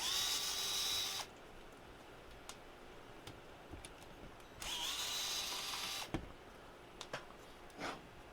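Small electric screwdriver running in two short bursts of steady whine, each rising briefly in pitch as the motor spins up, backing out the case's side screws. A few light clicks and knocks follow near the end.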